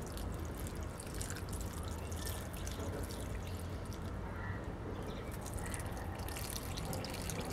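Diluted seaweed liquid fertilizer pouring and trickling from a plastic mug onto potting soil, quietly and steadily.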